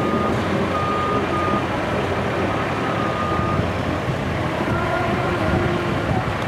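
Heavy diesel trucks running, with a high reversing-alarm beep sounding in long pulses about every two seconds over the first few seconds.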